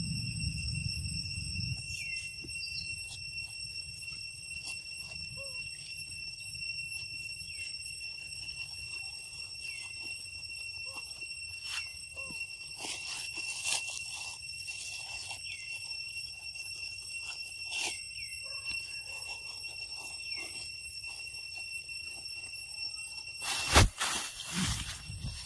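Forest insects make a steady high-pitched drone, with a short falling call repeating every couple of seconds. A sharp thump and rustle near the end is the loudest sound.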